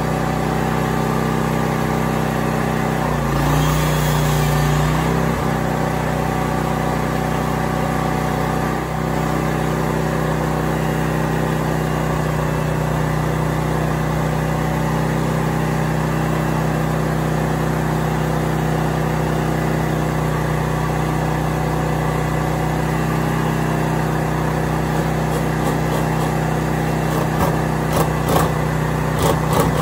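Small portable generator engine running steadily with an even hum. It grows briefly heavier about three to five seconds in, and a few sharp clicks or knocks come near the end.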